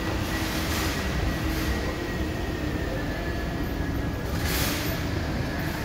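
Inclined moving walkway running: a steady mechanical rumble with a faint high whine, and a brief hiss about four and a half seconds in.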